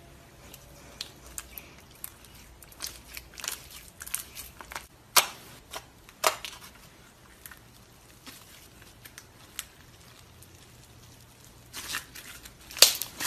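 Pink slime being squished, pressed and stretched by hand, giving irregular sticky clicks and small air pops; the sharpest pops come about five and six seconds in and near the end.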